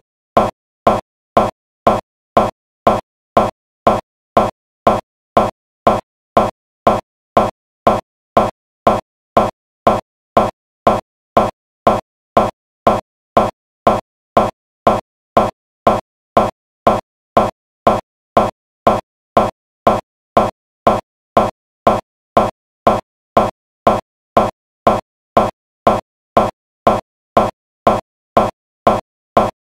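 A short, identical blip repeating evenly about twice a second, with no variation: the sound of a looping digital audio glitch, a tiny fragment of the soundtrack stuck and replayed over and over.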